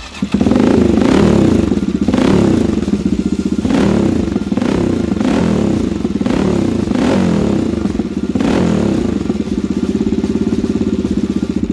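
CCM Blackout 600's single-cylinder engine fires up at the press of the starter button, then runs and is revved in a series of short throttle blips through its twin exhausts, settling to a steady idle near the end.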